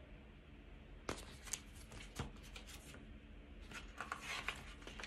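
Faint rustling and a few light taps of a picture book's paper pages being handled and turned, the busiest stretch about four seconds in.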